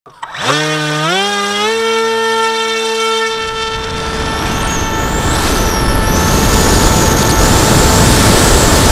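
Brushless electric motor (Turnigy D3536) spinning an 8x6 propeller on a Lanyu Raptor flying wing, heard from on board: it spins up with a whine that climbs in pitch in steps over the first two seconds, then holds a steady whine. From about three and a half seconds in, rushing wind noise builds and grows louder as the plane gets flying.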